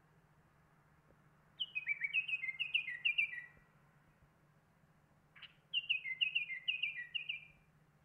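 Caged songbird singing two short phrases of quick, clear whistled notes stepping downward, each about two seconds long, with a single sharp note between them.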